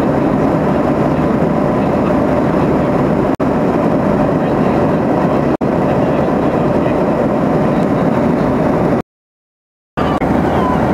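Steady engine and airflow noise inside a Boeing 737 cabin in flight. It drops out very briefly twice, about a third and halfway in, and cuts to silence for about a second near the end.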